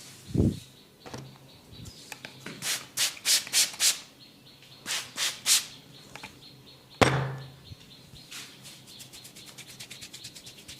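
Massage sounds close to the microphone: a soft thump, then quick rubbing strokes on skin, four and then three. A sharp snap comes about seven seconds in, followed by fast, light tapping over the last few seconds.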